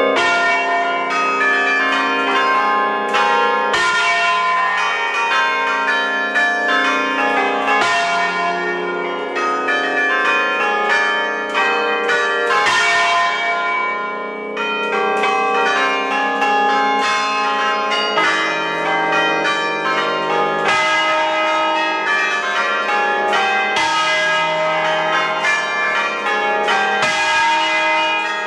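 A ring of eight Ecat-cast church bells in E-flat major, swung on their wheels and rung together in the Roman style (suonata alla romana). The strikes overlap in a dense, continuous peal that starts suddenly.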